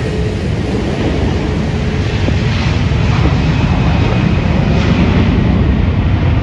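Twin Rolls-Royce Trent 700 turbofans of an Airbus A330-300 at takeoff power during the takeoff roll, a deep, steady rumble that grows louder as the jet comes past and rotates.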